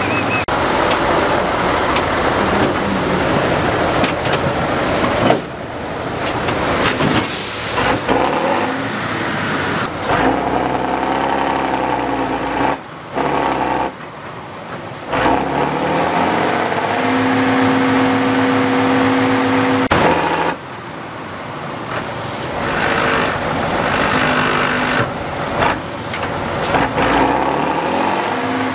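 Diesel engine of an eight-wheeled trial truck revving hard under load, its pitch rising and falling, with a few seconds held at a steady high note in the second half.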